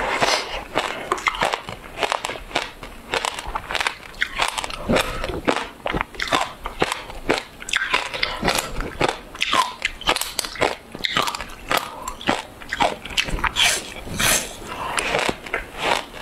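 Close-miked biting and chewing of a thin sheet of frozen passion fruit ice: a dense, continuous run of crisp crunches and cracks, many each second.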